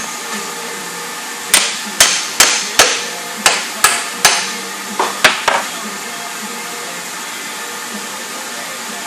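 About ten hammer blows on metal, each with a short ring, in three quick runs of four, three and three over about four seconds.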